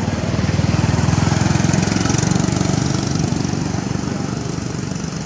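A small engine running close by with a fast low chugging pulse, swelling about a second in and then slowly fading as it passes.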